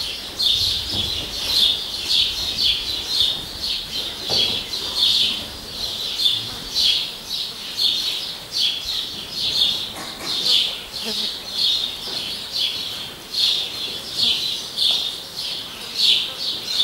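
Birds chirping: short high-pitched chirps repeated steadily, about two a second.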